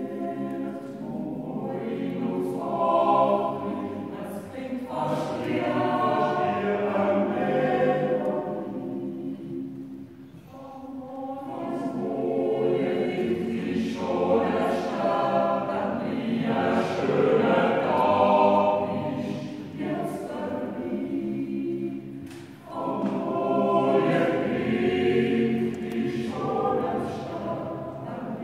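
A Swiss yodel club choir singing a cappella in several-part harmony, in long sustained phrases that break off briefly about ten and twenty-two seconds in.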